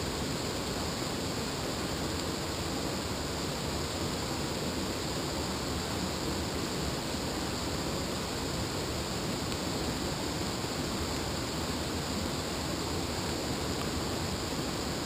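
Steady rush of a river cascading over rocks and a small waterfall into a pool.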